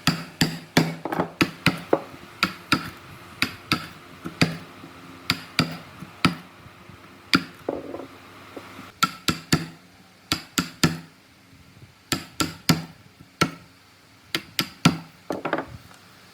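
Repeated hand-tool blows on wood: an irregular series of sharp knocks, often in quick runs of two or three, with a short ring after each.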